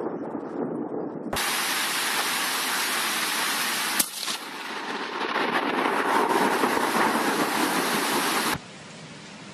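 Heavy rain pouring in a thunderstorm, a steady hiss, with a single sharp crack about four seconds in. The sound changes abruptly twice, about a second in and near the end, where it drops to a quieter rain hiss.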